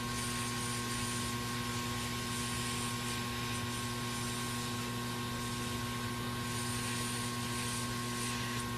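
Steady hum and hiss of a small fan-driven electric motor running, with a constant whine near 1 kHz and no change throughout.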